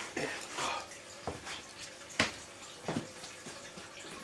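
Ganmodoki (deep-fried tofu patty) sizzling on a wire grill over a kerosene stove: a low hiss with scattered pops and crackles of hot oil, the sharpest about two seconds in.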